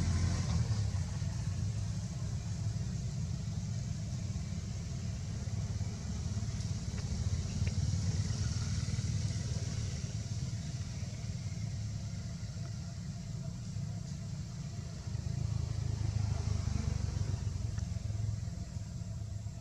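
A steady low outdoor rumble that swells and fades, with a faint high hiss above it.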